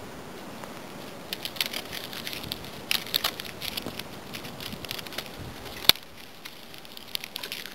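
Dry plant stems and twigs crackling and snapping as they are handled and broken, with one sharp snap about six seconds in.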